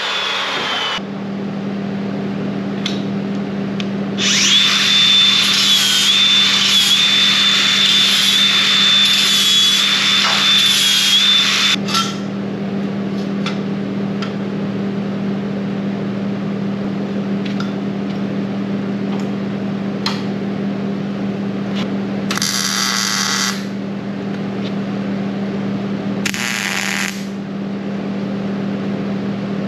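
An Evolution metal-cutting chop saw spins down in the first second, then runs and cuts through steel square tubing for about eight seconds, its high motor whine dipping slightly under load. A steady low hum runs underneath. Near the end come two short bursts of arc welding as the pieces are tacked together.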